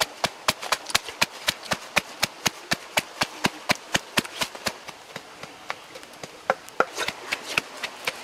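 Wooden pestle pounding red chilies in a wooden mortar: rapid, even knocks about four or five a second, thinning to scattered knocks after about five seconds.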